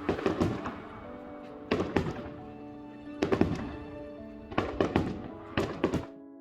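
Fireworks going off in a run of sharp bangs, mostly in close pairs, over background music with held notes.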